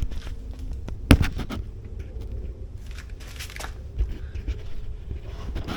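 Scattered clicks and knocks of hands and tools working on a motorcycle's rear bodywork, with a sharper knock about a second in.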